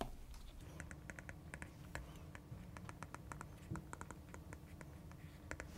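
Stylus tapping and scratching on a tablet's glass screen while handwriting: many faint, irregular light ticks, with a faint steady hum underneath.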